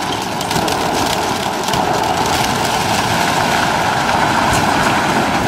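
Heavy machine engine running steadily while a wooden farm silo tips over, with scattered faint cracks.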